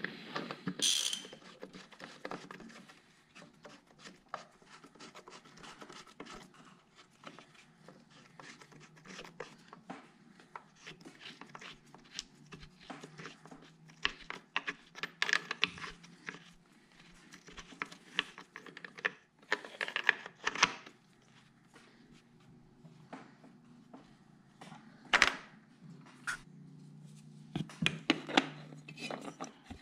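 Handling noise of hands working a braided oil line and an oil filter onto an aluminium engine bracket: scattered clicks, taps and rubbing, with a few sharper knocks in the second half, over a low steady hum.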